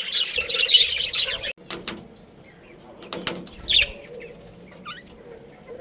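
Budgerigars chattering with rapid, overlapping high chirps that cut off suddenly about a second and a half in, followed by a few scattered single chirps.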